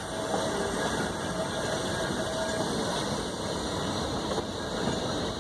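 Steady running noise of a moving vehicle, with a faint thin tone in the first half.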